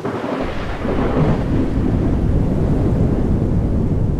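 Thunder: one long, low rumble that starts suddenly, swells over the first second and keeps rolling.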